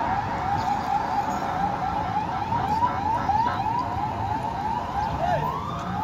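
Police patrol car's electronic siren in a fast yelp, about three quick rising sweeps a second. About five seconds in it switches to a slow rising wail. Low traffic rumble runs underneath.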